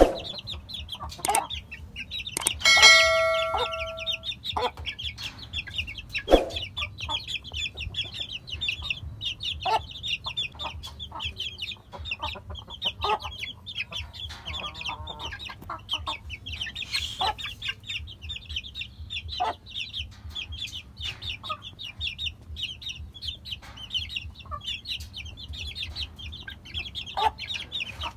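Chickens in a pen: half-grown chicks cheeping in a steady high chatter, with short clucks scattered throughout and one loud, held call from an adult bird about three seconds in.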